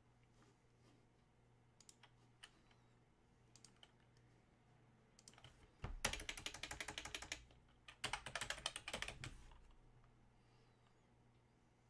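Typing on a computer keyboard: a few scattered key clicks, then two quick runs of keystrokes, each lasting about a second, starting about six and eight seconds in.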